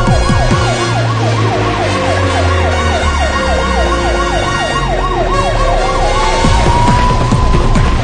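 Siren yelping in a fast rise-and-fall about three times a second, switching to a slow rising wail about six seconds in, over background music.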